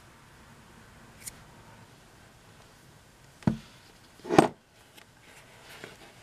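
Handling noise from tying a knot in a fabric drawstring cord at a leather cord holder: a small click about a second in, a sharp knock about three and a half seconds in, then a louder thump just after four seconds, with light rustling of the cord afterwards.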